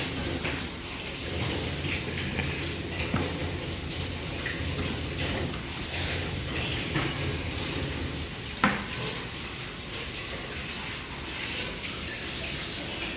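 Steady rushing kitchen noise, like running water, with a few light knocks of a chef's knife on a plastic cutting board and one sharp clank about nine seconds in.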